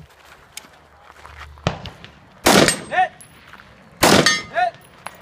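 Two pistol shots about a second and a half apart, each followed about half a second later by a short metallic ring.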